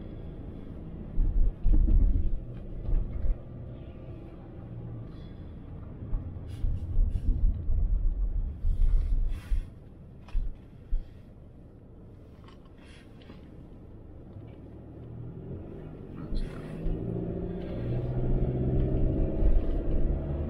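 Car driving on slushy, snow-covered streets: steady engine and tyre rumble heard from inside the cabin, broken by irregular heavy low thumps from bumps in the road. The rumble grows louder and takes on a steadier hum near the end.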